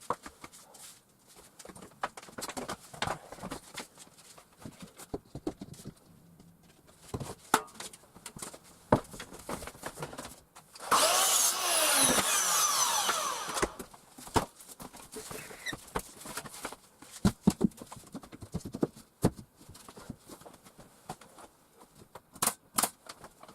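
Scattered knocks and taps of work on wooden boards, broken about eleven seconds in by a power tool that runs for about two and a half seconds and winds down in pitch.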